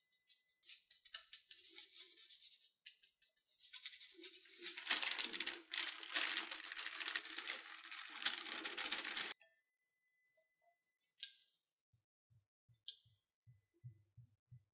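Crinkly rustling and crackling of something being handled, growing fuller about four seconds in and cutting off sharply about nine seconds in. A few faint clicks and soft taps follow.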